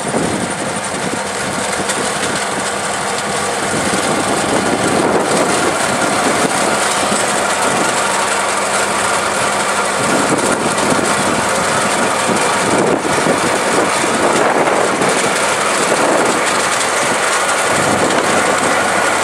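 Tractor engine running steadily while its front-mounted hydraulic vine pre-pruning machine cuts through the canes, a dense, loud mechanical din with a steady low hum underneath.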